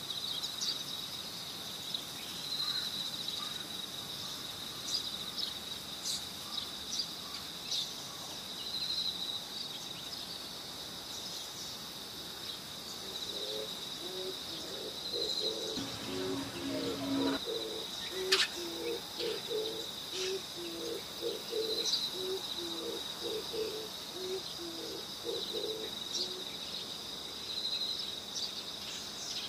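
An owl hooting: from about halfway through, a long run of short, low hoots repeated in quick groups. Under it a steady high-pitched whine swells and fades about every six seconds, with scattered light clicks.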